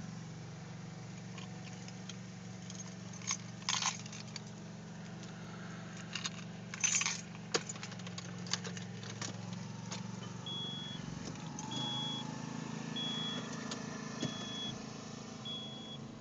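Steady low engine hum of a car heard from inside the cabin, with two short jangling rattles and a few clicks in the first half. From about ten seconds in, a dashboard warning chime beeps five times at an even pace, a little over a second apart.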